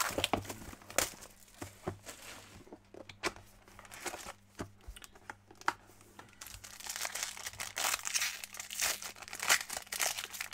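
Hands handling a trading-card box with scattered taps and clicks, then, from about six seconds in, the foil wrapper of a card pack crinkling and tearing as it is worked open.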